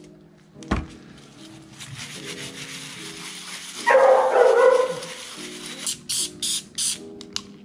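Background music with steady chords, over four quick hissing squirts from a spray bottle of degreaser about six seconds in. There is a short thump near the start and a louder burst of sound about a second long midway.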